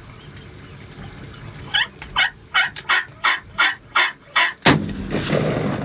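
A run of about eight evenly spaced turkey calling notes, roughly three a second, then a single shotgun blast near the end, the loudest sound, followed by a rush of echo and noise.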